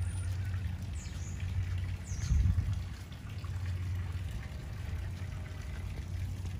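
Water trickling in a garden fountain over a low rumble, with a thump about two and a half seconds in and two short high chirps near one and two seconds in.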